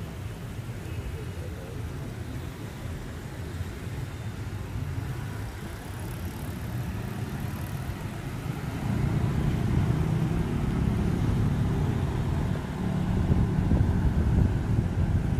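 City street traffic of cars and motorbikes: a steady low rumble that grows louder about nine seconds in and again near the end.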